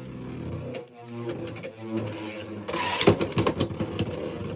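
Two Beyblade X spinning tops, Phoenix Flare and Phoenix Wing, spinning in a plastic stadium: a steady whirring hum at first, then from about three seconds in a rapid run of clicks and clacks as they hit each other and grind around the stadium.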